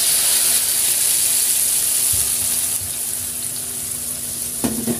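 Ground spice paste of chillies, shallots, garlic, candlenut, ginger and turmeric sizzling hard in hot oil in an aluminium wok, just poured in. The sizzle eases a little about three seconds in, with a couple of light clicks near the end.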